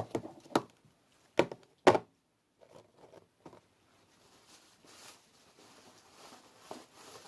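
Four sharp knocks in the first two seconds, like containers being set down on a hard surface, then faint rustling as things are handled.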